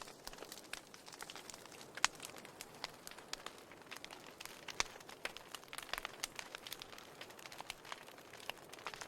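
Wood fire in a fireplace crackling: irregular sharp pops and snaps over a faint hiss, with a louder pop about two seconds in.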